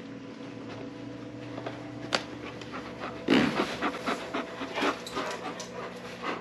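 A dog panting rapidly close to the microphone, starting about three seconds in, over a steady low hum, with a single click a little earlier.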